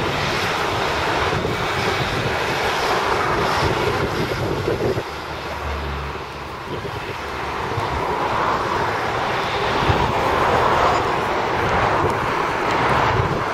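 A two-car Class 150 Sprinter diesel multiple unit passing, its underfloor diesel engines running with a steady drone mixed with wheel noise on the rails. The sound dips a little about halfway through and swells again.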